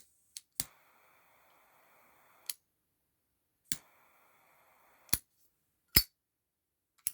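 Zippo lighter fitted with a butane gas insert being worked: sharp metal clicks, and twice a faint gas hiss of about two seconds that starts and stops on a click, with a louder single click near the end.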